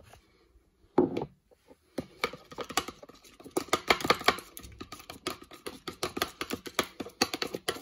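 A metal spoon beating egg in a white bowl, with rapid clicking of the spoon against the bowl starting about two seconds in. A single knock comes about a second in.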